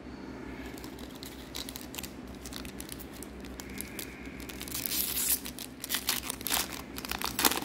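Foil trading card pack crinkling and tearing as it is ripped open by hand: scattered crackles at first, then dense, louder crackling in the last few seconds.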